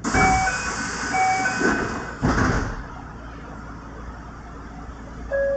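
Kintetsu 1030-series train doors closing at a station stop: a door-closing warning beeps twice, about a second apart, over a loud hiss, then the doors shut with a thud a little after two seconds in.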